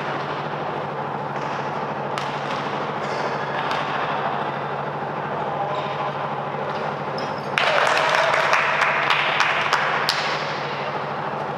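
Basketball game sounds: a ball bouncing on the court and scattered thuds over a steady hum and background noise. About seven and a half seconds in, a sudden loud burst of noise lasts a couple of seconds.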